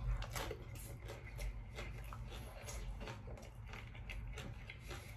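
Close-up chewing of a bite of crispy hard-shell taco: a quiet, irregular run of small crunches as the fried corn shell breaks up in the mouth.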